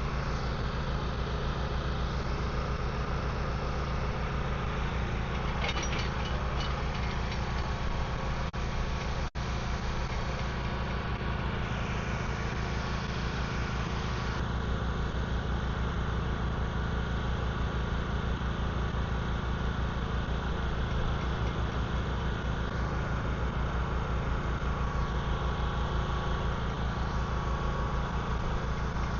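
An engine idling steadily, with a brief dropout about nine seconds in.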